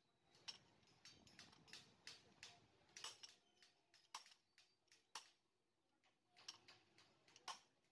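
Near silence with irregular faint clicks and taps of metal tools and motorcycle engine parts being handled during engine assembly.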